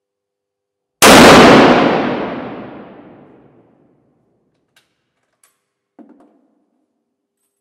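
A single shot from a scoped Mauser 98 bolt-action rifle, its echo ringing on through the indoor range for about two and a half seconds. A couple of faint clicks follow, then a short metallic clack as the bolt is worked near the end.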